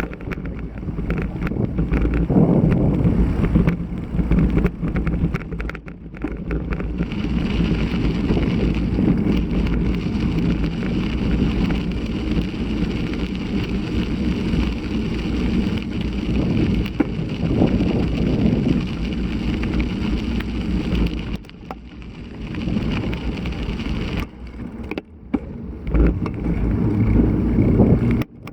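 Gusty typhoon wind buffeting the camera microphone: a steady low rumble that swells and eases, dropping briefly near the end.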